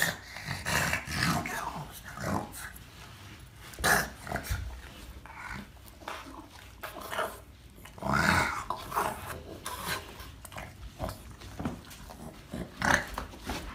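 A dog growling and grunting in play while it rolls and rubs itself along carpeted stairs, with scuffing of fur on carpet; the sounds come irregularly, with a louder drawn-out grumble about two-thirds of the way through.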